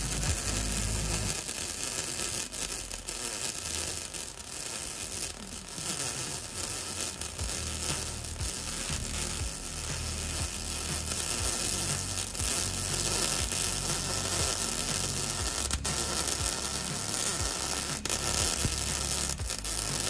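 MIG welding arc from a Prime Weld MIG180 crackling and sizzling steadily as a bead is run along a crack in a steel mower deck.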